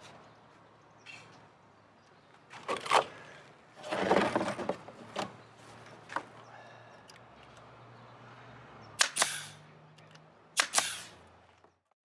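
Staple gun firing staples into a pine frame: several sharp shots a few seconds apart, some in quick pairs.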